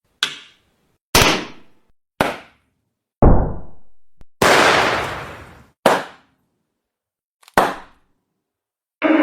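A string of separate bang sound effects cut apart by dead silence: seven sharp hits of different kinds, each fading out quickly. The one about three seconds in is a deep boom, and the one about four and a half seconds in is a longer, noisy crash. A ringing tone starts right at the end.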